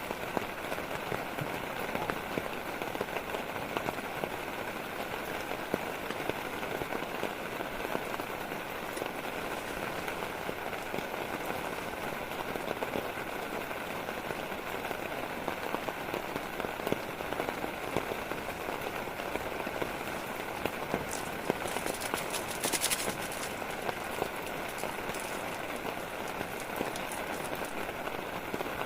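Steady heavy rain falling, with many separate drops ticking on a surface. About three quarters of the way through there is a short burst of sharper crackling ticks.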